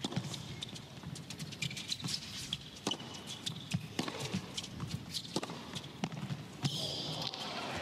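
Tennis rally on a hard court: a series of sharp racket strikes on the ball at irregular intervals, with players' footwork between them. About seven seconds in, the crowd starts cheering and applauding as the point ends.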